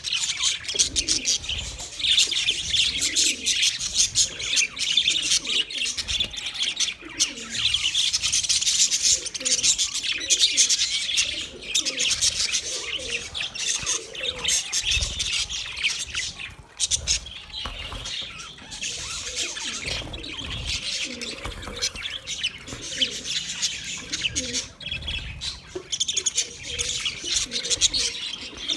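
A flock of budgerigars chirping and chattering without pause, many high calls overlapping.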